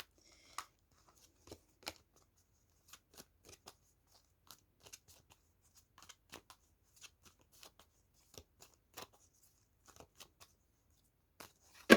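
A deck of tarot cards being shuffled and handled by hand: soft, irregular light clicks and slaps of cards, with one sharper snap near the end.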